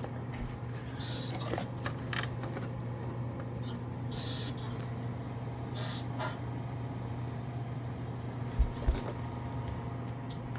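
Steady low hum of room tone, broken by a few brief rustling handling noises and two dull low thumps near the end.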